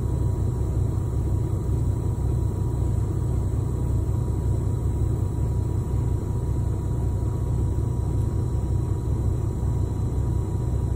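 Semi-truck diesel engine idling steadily, heard from inside the cab as a low, even rumble.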